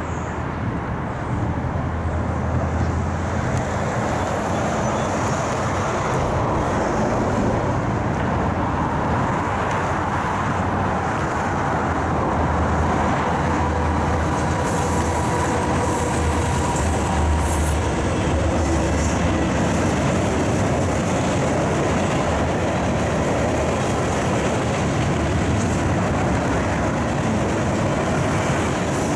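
Norfolk Southern freight train passing, its four diesel locomotives running under power with a steady low engine sound, which eases in the last several seconds as the string of empty gondola cars rolls by.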